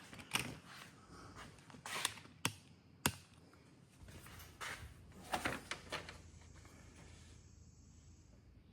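Light handling noises: scattered small clicks and rustles, with a sharp click about three seconds in and a quick cluster of clicks a little past the middle, typical of hands working the plastic syringe and plunger of a windshield-chip resin kit.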